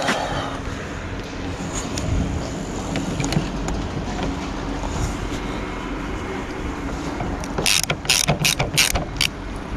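A screwdriver turning the screws of a VW T4 van's exterior mirror mount, with small scattered clicks and then a quick run of about six sharp clicks near the end.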